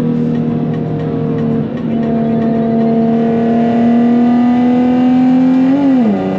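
Nissan 370Z's 3.7-litre V6 through its straight-piped exhaust, pulling hard at steady high revs with its pitch climbing slowly. Near the end the revs flare briefly and then drop sharply to a lower, steady pitch, as at a gear change.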